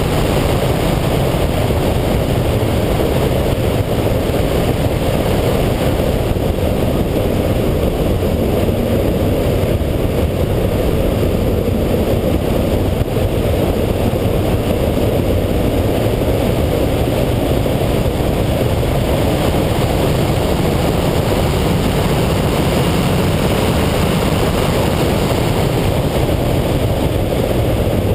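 2011 Corvette Z06's 7.0-litre LS7 V8 running hard at track speed, mixed with heavy wind and road noise; a steady, dense sound with no breaks.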